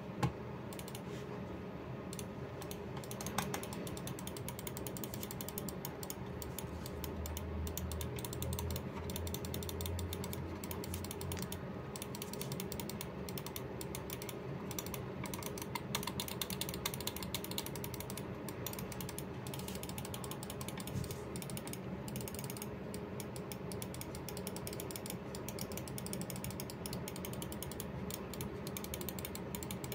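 Attack Shark X6 gaming mouse being worked in the hand: a continuous stream of fine, rapid plastic clicking and crackling.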